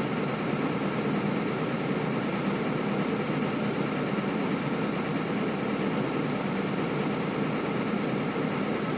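Hino 500 FM260JD truck's inline-six diesel engine running steadily at a raised idle of about 1000 rpm, heard from inside the cab, to drive the air compressor while the brake and clutch air tanks fill to near full pressure.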